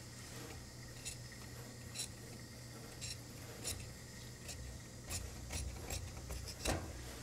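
Tailor's shears cutting through dark coat cloth in short strokes, each snip a sharp click with the blades rasping through the fabric. The snips come about once a second at first and faster in the second half.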